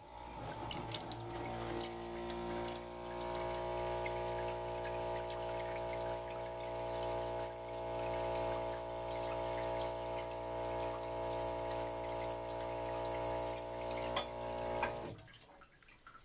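SHURflo Nautilus 12 V electric faucet and pump running: water pours from the faucet into a stainless steel sink over a steady pump hum. Both stop with a click about a second before the end.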